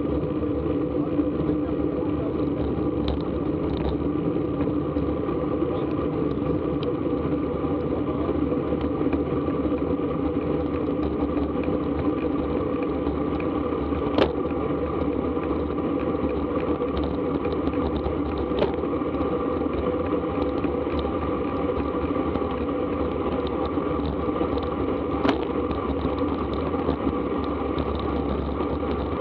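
Steady wind and road rush on a bicycle-mounted action camera's microphone while a road bike is ridden at speed. A few sharp clicks stand out over it.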